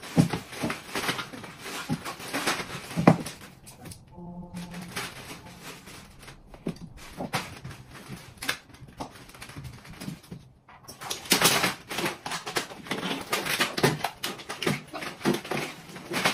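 Plastic toys and toy cars knocking and clattering irregularly on a tile floor and tabletop as small children handle them.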